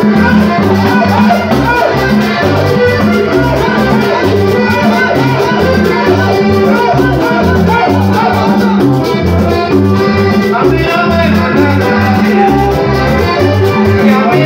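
Live Panamanian típico conjunto playing loud through a PA: accordion melody over a steady, repeating bass line and percussion.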